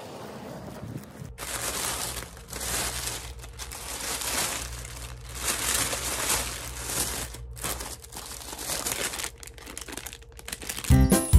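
Thin plastic carrier bag crinkling and rustling in irregular swells as it is opened and the bread inside is handled. Music starts just before the end.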